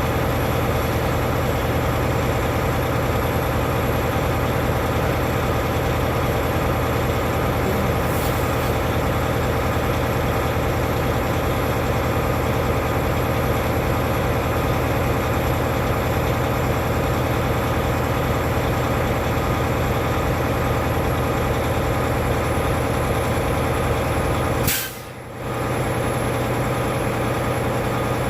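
Semi truck's diesel engine idling steadily, with a brief drop in level near the end.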